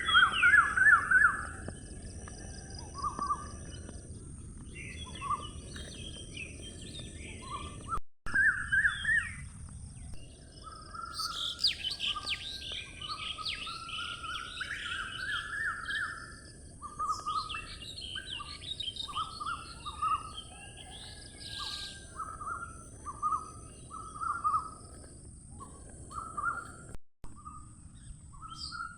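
Birds chirping and calling in quick runs of short repeated notes, over a steady faint hiss. The sound cuts out abruptly twice, about eight seconds in and near the end.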